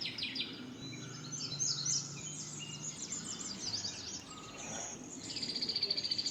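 Birds chirping: many quick, high, falling chirps, then a rapid high trill about five seconds in.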